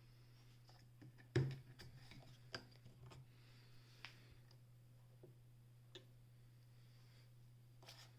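Irregular clicks and knocks from handling a Singer 28K hand-crank sewing machine, the loudest knock about a second and a half in, over a steady low electrical hum.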